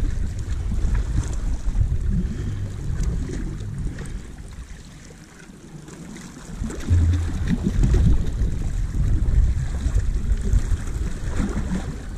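Wind buffeting the microphone, with small waves washing against the rocks at the water's edge. The wind eases off for a couple of seconds mid-way, then picks up again.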